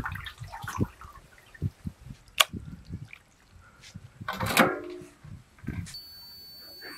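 Water splashing and dripping as raw chicken livers are rinsed by hand in a steel pot of water, with scattered soft knocks and a sharp click about two and a half seconds in. A brief pitched squeal about four and a half seconds in is the loudest sound.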